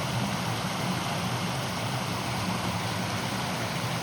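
Creek swollen by heavy rain rushing steadily, a constant even wash of running water.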